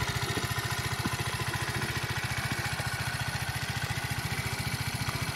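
Barton Volcano moped's 49 cc single-cylinder four-stroke engine idling with a steady, even putter.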